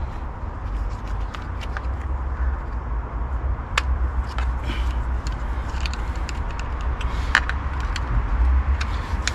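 Scattered light clicks and taps from a car door lock mechanism being handled as its small spring is pushed and hooked into place by hand, the sharpest about four seconds in and again about seven seconds in, over a steady low rumble.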